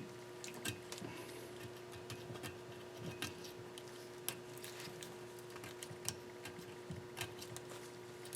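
Irregular light clicks and short scrapes of a blade scraping old gasket material off an engine's gasket surface, over a steady hum.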